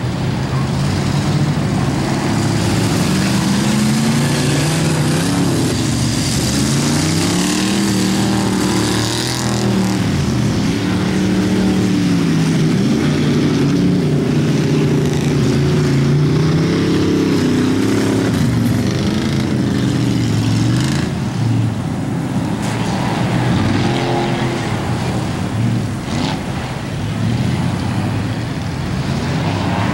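Engines of several rear-wheel-drive ice-racing cars revving hard, their pitch rising and falling again and again as they accelerate and lift through the corners, several engines overlapping.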